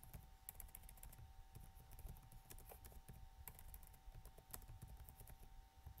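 Faint computer keyboard typing: irregular key clicks as a line of text is typed.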